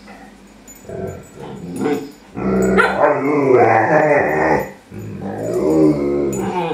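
Alaskan Malamutes vocalizing: a couple of short yips or growls, then two long, drawn-out moans with a wavering pitch from the adult malamute as he yawns.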